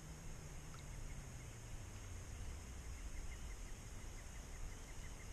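Quiet outdoor ambience with a faint steady hiss, and a soft regular ticking of about five a second that starts about two seconds in.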